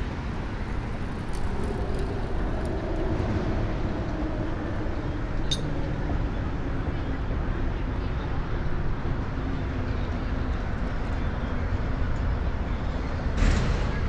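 Outdoor city background noise, with the hum of a passing motor vehicle's engine and a single sharp click about five and a half seconds in.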